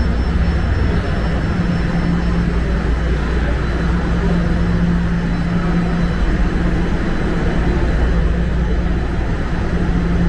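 Steady hum and whir of a stationary subway train standing at the platform with its doors closed, its onboard equipment running. A low droning tone swells and fades every few seconds.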